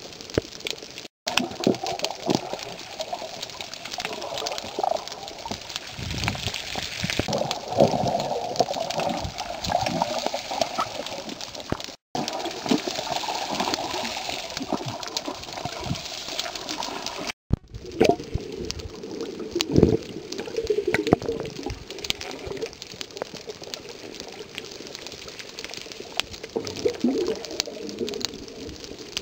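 Water sloshing and gurgling around a snorkeller, with many irregular knocks and splashes.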